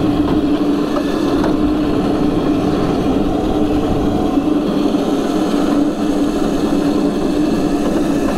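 Electric drift kart's upgraded 1000 W front-wheel drive motor running flat out, a loud steady whine held at one pitch at top speed, over a low rushing noise.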